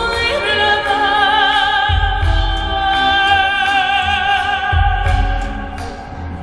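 Live band music with a woman's voice singing long, held notes with wide vibrato in an operatic style over keyboards and strings, with deep low booms about two seconds in and again near five seconds.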